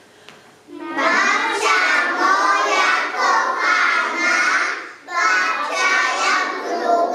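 A group of young preschool children singing together, starting about a second in, with a short break around the middle before the next line.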